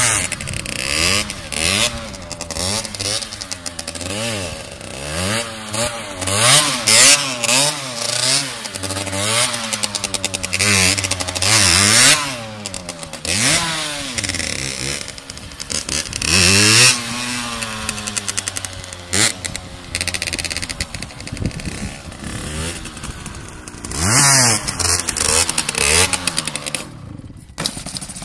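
Motorcycle engine revving up and down over and over as the bike is ridden in wheelies and tight circles, its pitch rising and falling every second or two, with several loud high-rev peaks.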